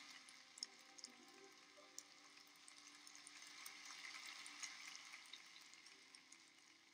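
Very faint crackly applause from an ice show audience, with the last quiet notes of the programme music under it, dying away toward the end.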